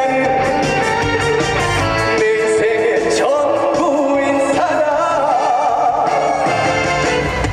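Live band music with a man singing a trot song over it, his voice wavering in a vibrato around the middle.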